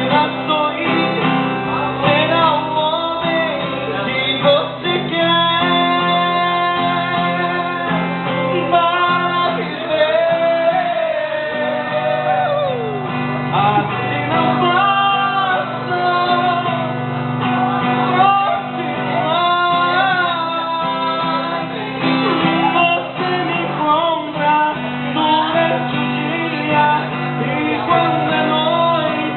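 Singing with guitar accompaniment.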